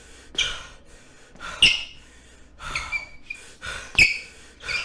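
A person's short, noisy breaths or gasps, about eight in quick irregular succession, some with a brief whistle.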